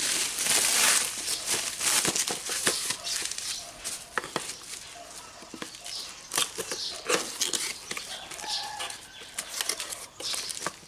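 Bubble wrap and plastic packaging crinkling and rustling as a light bulb is unwrapped by hand, with scattered clicks and crackles, busiest in the first couple of seconds.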